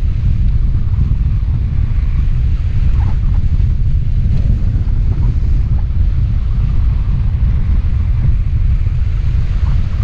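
Wind buffeting the camera microphone, most likely airflow during a hang glider flight: a steady, loud low rumble with no other sound standing out.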